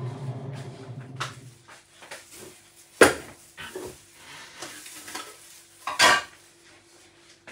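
Electric centrifugal juicer's motor running down and stopping within the first second or so. Then scattered clinks and knocks of kitchenware, the loudest about three seconds and six seconds in.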